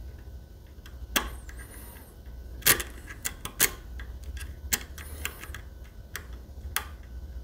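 Lock picks working in a Medeco lock cylinder: a hook pick and tension wrench make irregular sharp metallic clicks and ticks, the loudest about two and a half seconds in, with faint high scraping as the pick slides along the pins.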